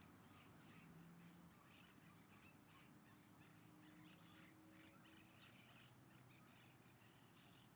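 Faint chorus of birds chirping, many short calls overlapping, with a faint low hum underneath.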